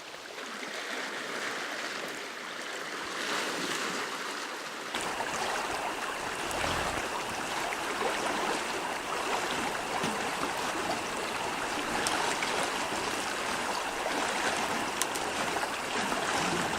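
River water rushing and flowing in a steady wash; it grows louder and fuller about five seconds in.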